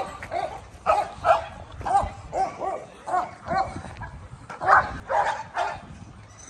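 A dog yipping repeatedly in short, high calls, about two a second, with a short pause about four seconds in.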